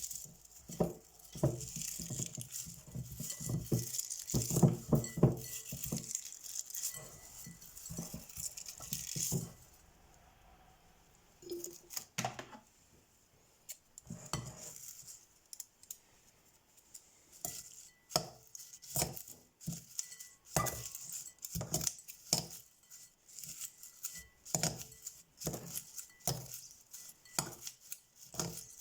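Kitchenware being handled: dishes, pots and cutlery clinking and knocking in quick irregular runs, with a lull about ten seconds in before the clinks pick up again.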